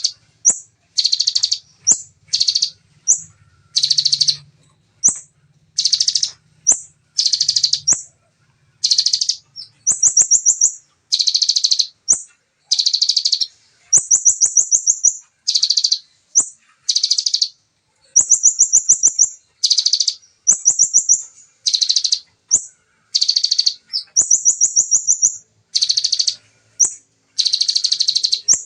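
Bar-winged prinia (ciblek) singing in rapid-fire bursts: short, dense, high trills, about one a second, some of them thinner and higher-pitched buzzy runs.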